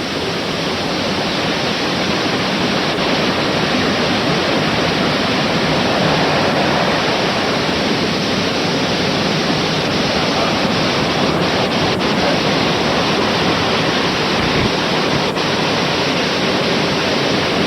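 Steady, loud roar of heavy hurricane surf and strong wind hitting the microphone.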